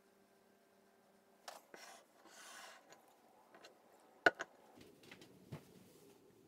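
Glass jars full of water being handled and set down on a stone worktop: a brief rustle of handling, then a sharp knock of glass on stone, quickly repeated, and a softer knock about a second later.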